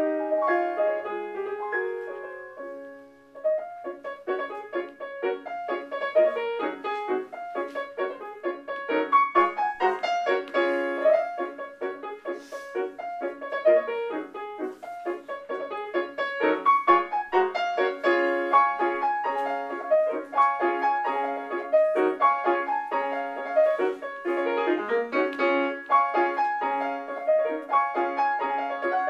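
Solo piano playing a lively classical piece. The notes fade to a brief pause about three seconds in, then quick, busy passages take over.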